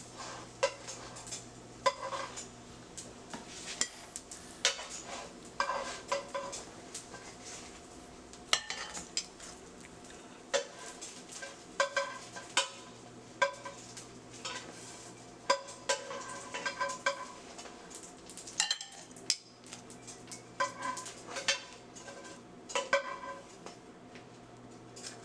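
Utensil clinking and tapping against a frying pan and a baking dish as seared seitan mock chicken thighs are lifted from the pan into the dish: a sharp, briefly ringing clink every second or so, over a steady low hum.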